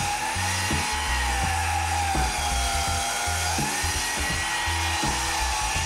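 Sliding miter saw running with a steady, slightly wavering whine as its blade cuts down through a thick oak board. Background music with a bass line plays underneath.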